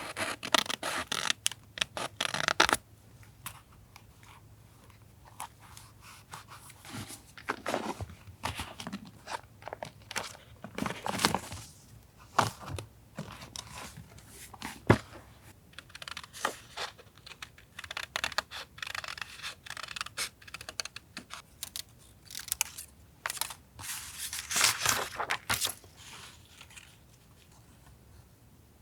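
Paper being torn and handled: irregular bursts of tearing and rustling with scrapes and light taps, the longest bursts near the start, around the middle and near the end, and one sharp click about halfway through.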